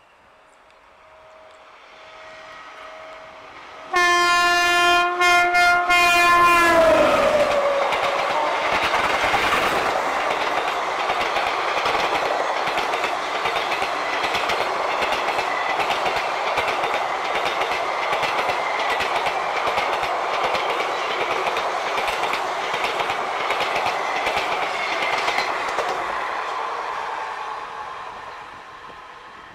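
WAP-7 electric locomotive's air horn sounding in several short blasts about four seconds in, its pitch dropping as the locomotive passes at speed. A long rush and clatter of the train's ICF coaches over the rails follows, fading away near the end.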